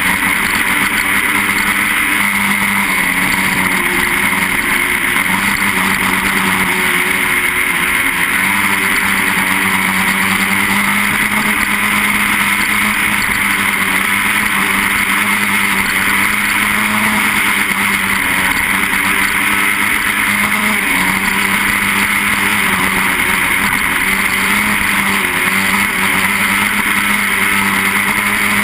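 125cc grass-track racing motorcycle engine running hard and steady as the bike laps, heard from a camera mounted on the bike. The engine note holds at high revs with only small rises and dips as the rider eases and opens the throttle.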